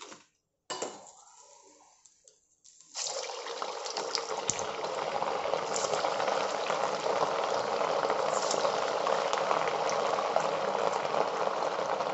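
Hot oil in a kadai starting to sizzle suddenly about three seconds in, as the next batch of rava nuggets goes in to deep-fry. It keeps up a dense, steady sizzle that grows slightly louder.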